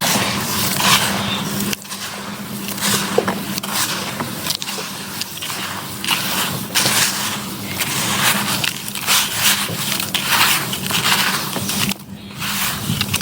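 Dried sand-and-cement shapes being crumbled and crushed by hand: a dense, continuous crunching and gritty scraping with many small crackles, broken by a couple of abrupt cuts.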